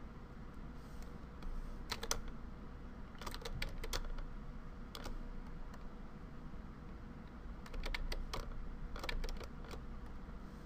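Computer keyboard keys and mouse buttons clicking in about five short quick groups, over a low steady hum.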